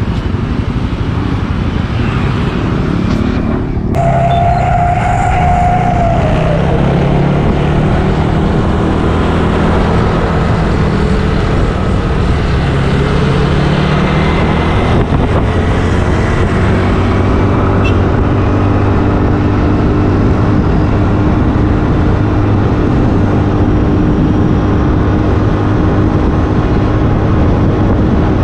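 Motorbike ridden along a road at speed: the engine runs steadily under wind and road noise, with a short held tone a few seconds in.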